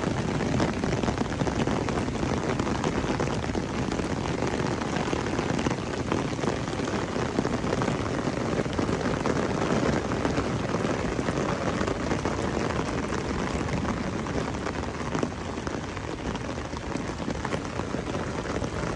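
Heavy rain pouring down steadily, a dense patter of drops striking hard surfaces.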